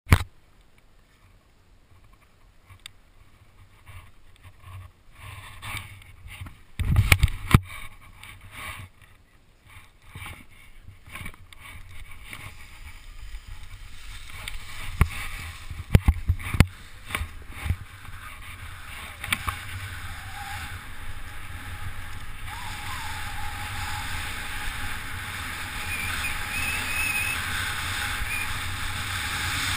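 Scattered knocks and crunches of boots and gear in snow while a speed wing is launched, then a steady rush of wind over the camera that grows gradually louder as the speedglider picks up speed down the snowy slope.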